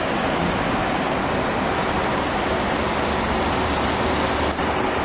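Steady street traffic noise with a CAF Urbos tram running along its track, an even rushing sound with a faint low hum and no sudden events.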